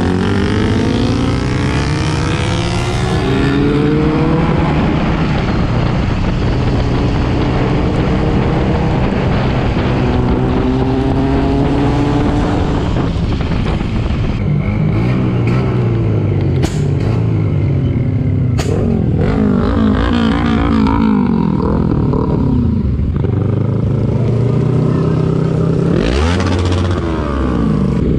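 Motorcycle engine heard from the rider's seat, pulling through the gears: its pitch climbs and drops again several times as it shifts. A steady rush of wind noise runs underneath.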